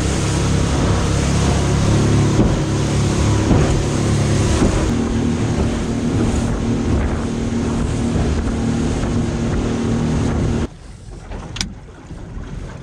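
Boat motor running at speed with the boat under way, together with wind and rushing water. About ten and a half seconds in, the motor noise drops away suddenly.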